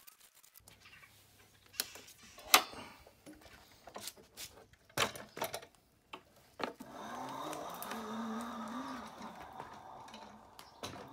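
Several knocks and clicks of the Razor E200 electric scooter being handled. From about two-thirds of the way in, its electric motor and chain drive run with a steady whirr as the newly fitted two-wire throttle is tried, and a dove coos over it.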